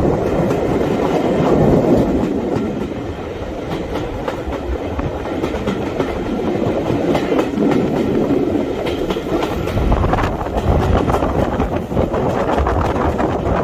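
Train running along the track: a steady rumble with many quick clicks of the wheels over the rails.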